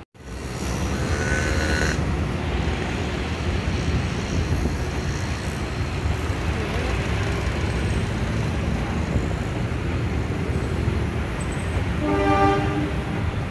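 Diesel-hauled passenger train crossing a viaduct: a steady, even rumble of locomotive and coach wheels on the bridge, mixed with street traffic below. A horn sounds briefly near the end.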